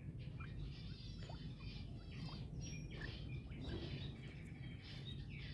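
Birds chirping and twittering in quick repeated bursts, over a steady low hum.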